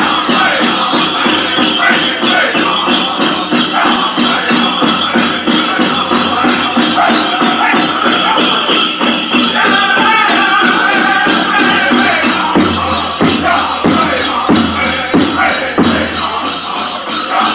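Powwow drum group beating a large drum in a steady pulse and singing a chicken dance song, with the jingling of bells on the dancer's regalia. The drum's low beat comes forward more strongly from about three-quarters of the way through.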